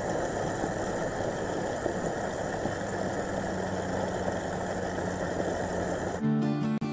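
A motor running steadily with a low hum. It cuts off abruptly about six seconds in.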